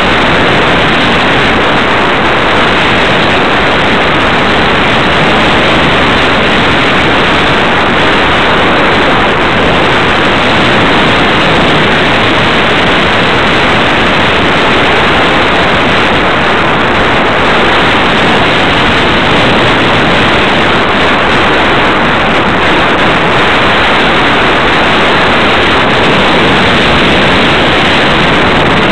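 Radio-controlled Super Cub model airplane in flight, heard from on board: a loud, steady rush of propeller, motor and wind noise with no change in pitch.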